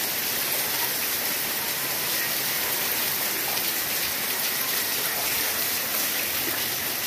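Heavy rain pouring down on a concrete lane and brick walls, a steady, unbroken hiss.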